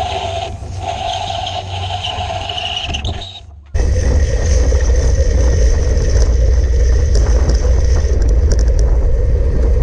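Loud steady rumble of wind buffeting the microphone while on the move, with rolling road noise. A little over three seconds in it drops briefly, then jumps to a louder stretch.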